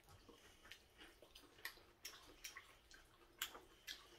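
Faint, wet clicks and smacks of someone eating jajangmyeon noodles, about three or four a second: chewing mouth sounds and wooden chopsticks working in a plastic takeout bowl.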